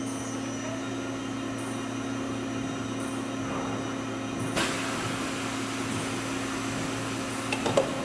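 Sealed-unit compressor cutting machine running, its turntable spinning a clamped refrigerator compressor with a steady drive hum. There is one sharp metallic knock about halfway through and a quick cluster of knocks near the end.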